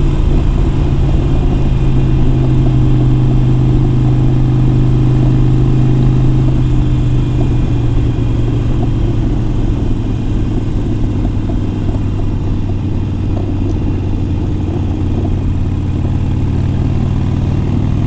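Harley-Davidson Iron 883's air-cooled V-twin engine running through a Vance & Hines Big Radius exhaust while the bike cruises at steady speed. Its note holds steady, then drops slightly about eight seconds in.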